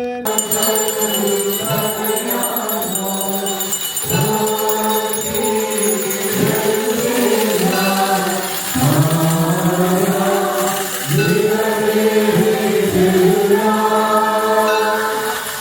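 Church choir and congregation singing a slow liturgical chant, the phrases rising and falling, with a faint jingle of small bells behind the voices.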